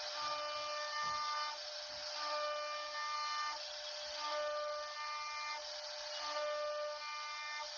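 CNC router carving a wooden door panel: a steady high hiss from the spindle and cut. Over it, a whine sounds for a little over a second and then drops out, about every two seconds.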